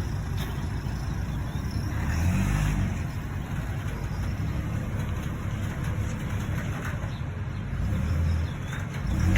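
A motor vehicle running with a steady low rumble of engine and road noise. The rumble swells briefly twice.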